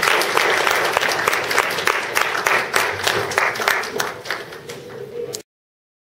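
Small audience applauding, with individual hand claps standing out; the clapping thins out and stops abruptly about five seconds in.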